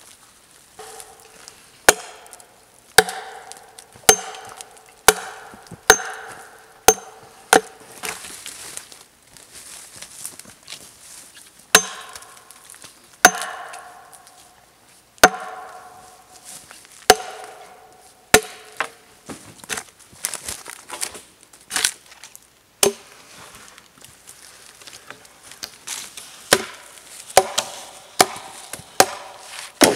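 Hatchet chopping into a wooden log: sharp, irregular blows about one or two a second, some leaving a brief ring.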